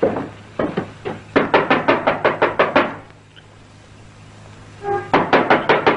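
Knocking on a door in quick runs of several knocks each, about six a second, with a pause of about two seconds before a fresh run near the end.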